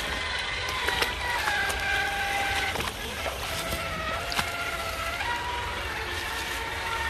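Electric motor and drivetrain of an RC scale crawler whining as it drives through shallow water, the pitch stepping down twice and rising again near the end as the throttle changes, with a few sharp clicks from wheels on stones.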